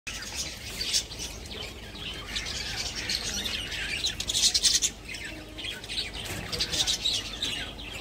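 A flock of caged budgerigars and small finches chirping and chattering, many short calls overlapping without a pause, busiest about halfway through.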